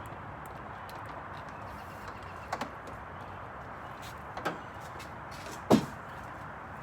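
Steady outdoor background hiss with three short squeaky sounds, about 2.6, 4.4 and 5.7 seconds in; the last is the loudest and glides down in pitch.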